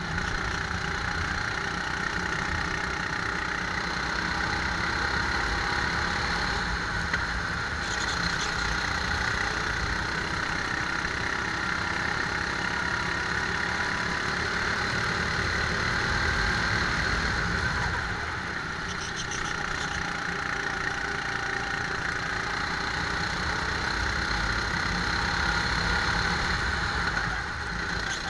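A rental go-kart's small engine running at speed on a wet track under a steady rushing noise. The engine eases off briefly twice, about two-thirds of the way through and again near the end, as if lifting for corners.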